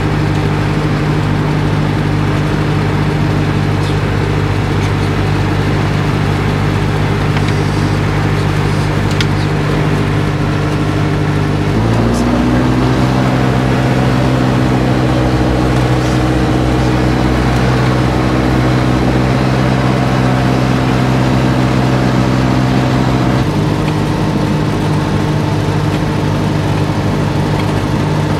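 Cessna 172's diesel aircraft engine running steadily at low speed. About twelve seconds in its speed steps up and holds for about eleven seconds, then drops back down.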